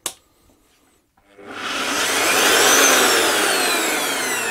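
Ryobi EBS-1310V belt sander motor, run with no belt fitted: about a second in it starts and whines up to speed, then is let go and winds down with a falling whine as the drive wheel spins freely after its jam was cleared. A sharp click at the very start.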